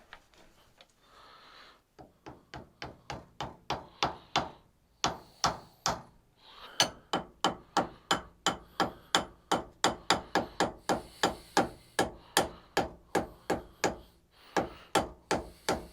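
Rapid light hammer taps on a milling machine vise, about three to four a second, growing louder over the first couple of seconds, with a few short breaks: the vise being nudged into alignment while it is dialled in with an indicator.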